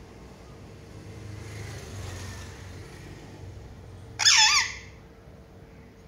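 Alexandrine parakeet giving one short, loud squawk about four seconds in, lasting about half a second, its pitch wavering up and down. Before it, a low rumble swells and fades.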